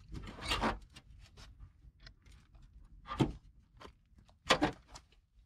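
Hands and a socket wrench working on a car's fender and plastic inner panels: scattered rubs and small clicks, a sharp clack about three seconds in and a louder double clack about a second later.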